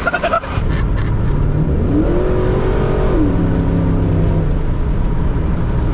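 Pickup truck engine at full throttle in a race, its pitch rising about two seconds in, then dropping sharply as it shifts to the next gear and pulling on.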